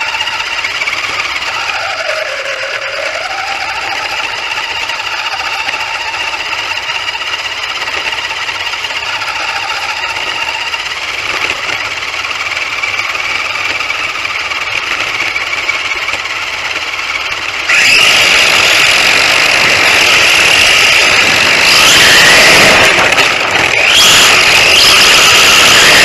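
RC stadium truck's motor and drivetrain running under throttle, with tyre and road noise from the onboard camera; the pitch drops and picks up again early on as the truck slows and speeds up. About two-thirds of the way in the sound turns suddenly louder and rougher.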